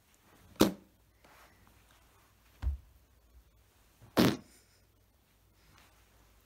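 Whoopee cushion inside a plush skunk toy letting out two fart noises as it is sat on: a short one about half a second in and a longer, buzzier one about four seconds in. A softer low thump comes between them.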